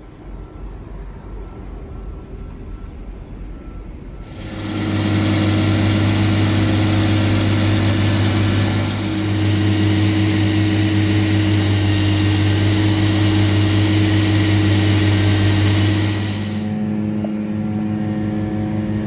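A motor vehicle's engine running with a steady low hum. About four seconds in it suddenly gets much louder, with a wide rushing noise over the hum, and it eases back down near the end.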